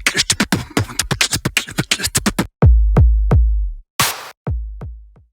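Electronic drum-machine intro music: a fast roll of sharp hits, then a few deep, booming bass kicks with a short noise burst between them, cutting off abruptly near the end.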